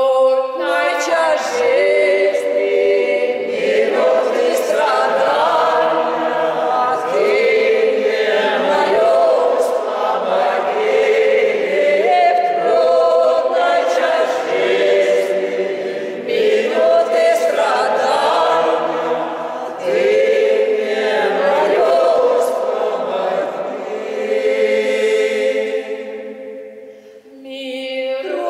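Mixed choir of men's and women's voices singing a slow sacred song a cappella in several parts, in a church. It moves in phrases of about four seconds each and fades away near the end.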